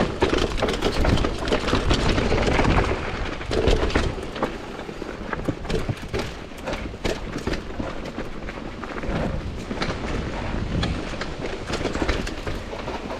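Mountain bike riding down a rocky trail: tyres rolling over rock with many sharp clicks, knocks and rattles from the bike, and wind rumbling on the helmet camera's microphone. The rumble is heaviest in the first four seconds, then eases.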